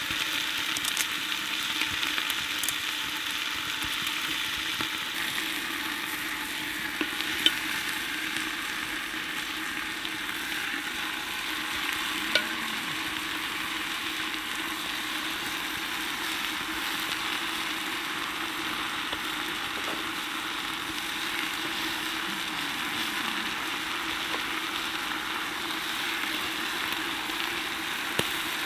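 Meat searing in hot fat inside an Afghan pressure cooker over a campfire: a steady sizzle with a few sharp pops.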